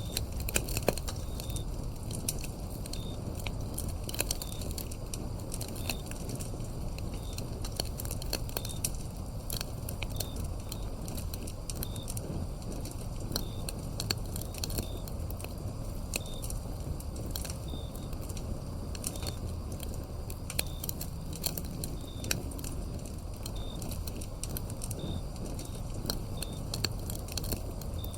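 Wood fire burning, with frequent sharp crackles and pops over a low steady rumble, while crickets chirp in short, evenly spaced high notes.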